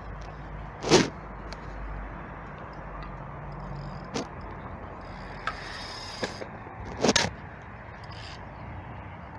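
Steady outdoor background of breeze and traffic, with a car moving slowly close by. Two short loud noises stand out, about a second in and again about seven seconds in.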